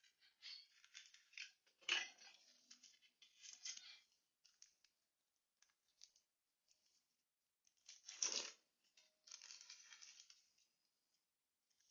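Faint, scattered rustling and small clicks of something being handled, with a sharper knock about two seconds in and a louder half-second rasp about eight seconds in.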